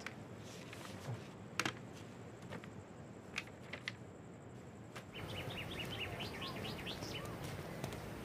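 A quiet room with a few faint clicks. About five seconds in, outdoor ambience comes up and a bird sings a quick run of about a dozen rising chirps.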